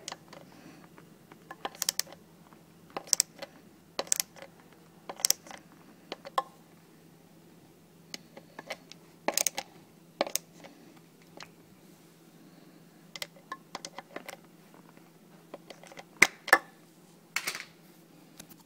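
Screwdriver clicking against the steel screws and metal flange of a garbage disposal's discharge tube as the screws are tightened: sharp, irregular clicks, often about a second apart, with a faint steady hum underneath.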